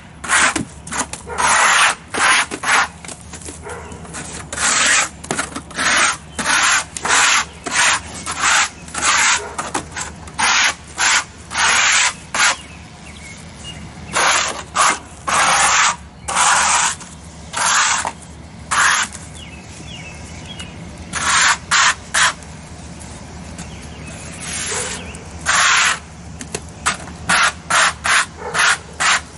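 Rapid rasping strokes of a hand scraper across brick coated in partly set Type S mortar wash, scraping off the excess to expose the brick. The strokes come in quick runs with a few short pauses between them.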